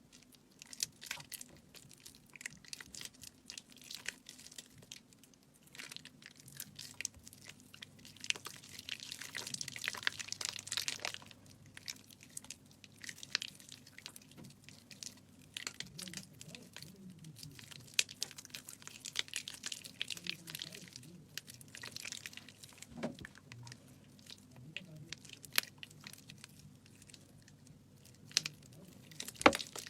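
Soaked bar soap squeezed and crushed in the hand: a long run of small wet crackles and clicks, busiest and loudest about eight to eleven seconds in.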